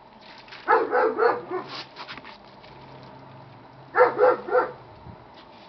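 Doberman puppy barking in two short bursts of three or four quick barks each, about a second in and again about four seconds in.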